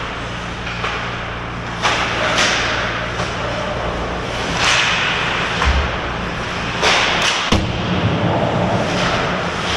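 Ice hockey play around the net: skate blades scraping and carving the ice in repeated swishes, with a sharp knock about seven and a half seconds in, over the rink's steady hum.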